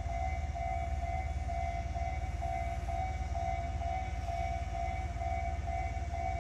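Railway level-crossing warning alarm sounding, a two-note electronic tone repeating a little over twice a second, over the low rumble of an electric train moving slowly along the tracks.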